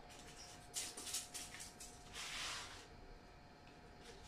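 Plastic bubble wrap rustling as it is handled: a few short crinkly bursts, then a longer rustle about two seconds in.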